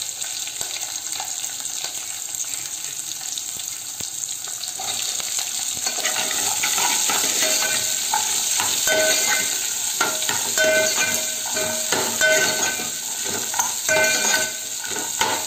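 Chopped green chillies sizzling and crackling in hot oil with cumin and mustard seeds in an aluminium pot. From about six seconds in, a steel ladle stirs them, scraping and ringing against the pot over and over.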